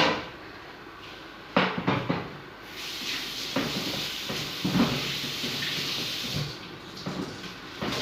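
Kitchen tap water running into the sink for a few seconds, starting about three seconds in and stopping near the end, with dishes and utensils clattering and knocking while used cookware is washed.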